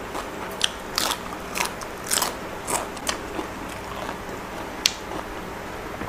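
Close-miked crunchy chewing of a crisp raw cabbage leaf. Sharp crunches come about every half second for the first three seconds, then one sharp crunch near the five-second mark.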